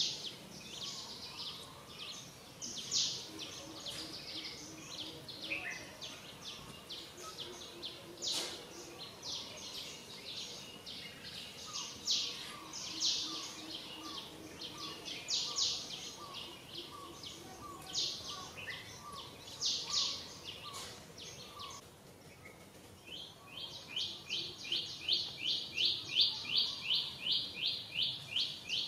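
Birds chirping: short high chirps repeated all through, then a faster, even run of about three chirps a second in the last few seconds.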